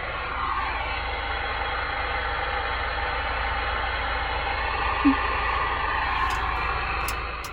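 Steady hiss and static from a CRT SS 9900 CB radio's speaker on the 11-metre band in upper-sideband mode, with no station transmitting.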